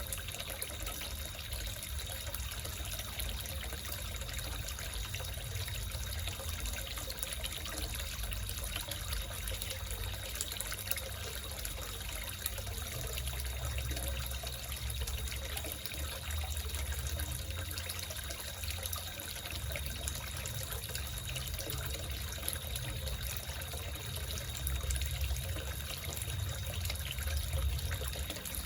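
Water trickling and splashing steadily into a small koi pond, with a deep rumble underneath and a faint steady high tone running throughout.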